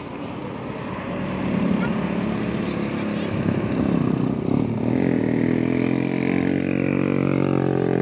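Heavy diesel engines of buses labouring up a climb and passing close by. The pitch slides midway, then settles into a steady low drone from about five seconds in as the next vehicles come up under load.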